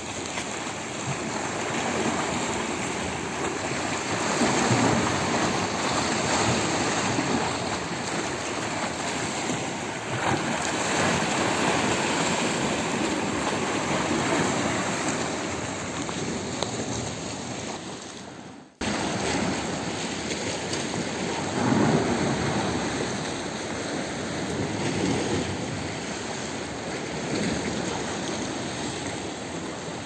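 Small sea waves washing and splashing against shoreline rocks, a steady rushing that swells and eases every few seconds, with a momentary dropout about two-thirds of the way through.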